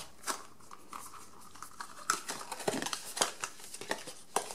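Hands handling a small cardboard box and lifting a paper card out of it: scattered light taps, scrapes and rustles of card and paper.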